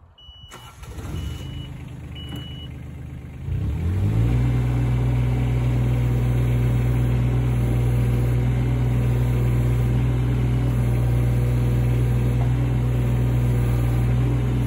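Takeuchi TB216 mini excavator's diesel engine cranking on the starter for about three seconds, with a few short high beeps in the first couple of seconds, then catching about four seconds in and settling into a steady idle.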